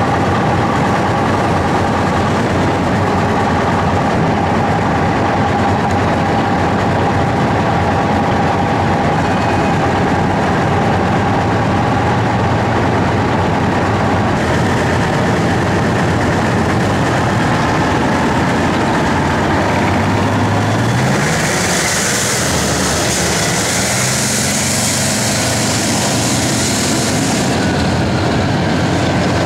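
Kurganets-25 tracked armoured personnel carrier driving past, its heavy engine and tracks making a loud, steady rumbling noise. About two-thirds of the way through the engine pitch rises, and a high hiss runs for several seconds.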